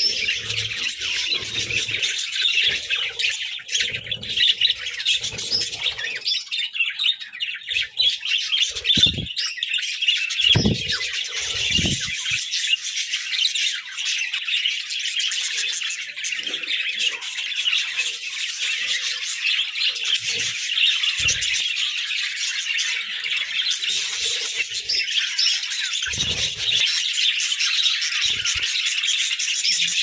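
A flock of budgerigars chattering and chirping without a break, many birds at once, with a few soft low thumps.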